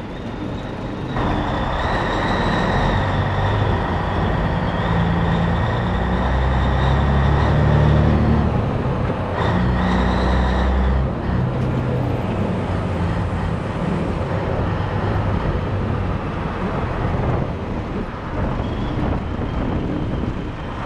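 Cabover Peterbilt 362's diesel engine pulling away under load. It builds up about a second in, with a steady high whine over the engine, and eases off about eleven seconds in.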